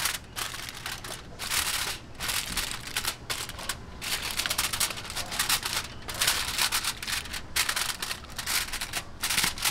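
Aluminium foil crinkling in irregular bursts as it is pressed and crimped over the llanera flan moulds to keep steam drips off the flan.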